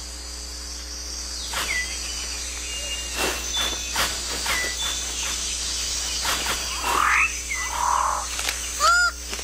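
Rainforest wildlife: a steady high-pitched insect and frog chorus with a few short whistled bird notes. Near the end a rising call and a buzzy call are followed by a run of repeated nasal, honk-like calls.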